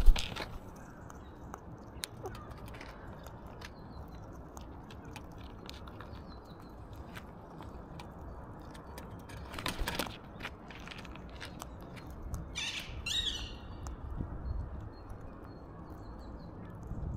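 Alexandrine parakeet feeding, with scattered sharp clicks and taps from its beak working seeds, a louder scuffle about ten seconds in, and a short bird call a few seconds later.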